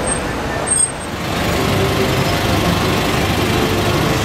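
Steady street traffic noise of passing cars and engines, growing a little louder about a second in.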